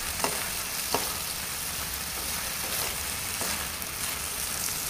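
Yard-long beans sizzling in oil and seasoning sauce as they are stir-fried in a wok. Steady frying hiss, with a few sharp clicks of the cooking utensils against the pan in the first second.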